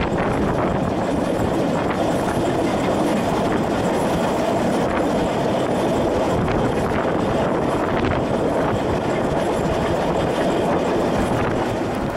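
Narrow-gauge steam train running along the line, heard from beside the locomotive: a steady rumble of wheels on the track with a clickety-clack of rail joints.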